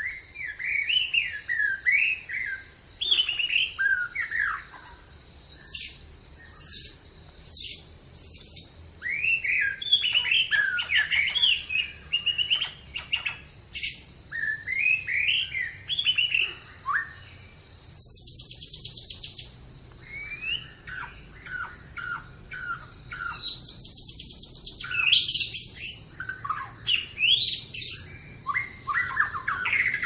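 Several songbirds chirping and whistling in quick overlapping phrases, with a couple of longer buzzy trills, over a steady high-pitched hum.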